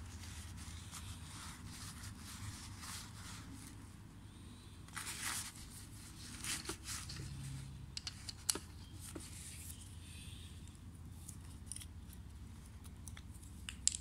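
Paper towel rustling and crinkling as it wipes a bike pedal spindle clean, in bursts about five and seven seconds in. A few sharp little clicks of the metal parts being handled come in between, the loudest about eight and a half seconds in.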